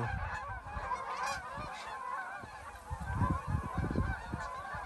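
A large flock of geese honking continuously in flight, many calls overlapping into a dense chorus. There are low rumbles on the microphone about three seconds in.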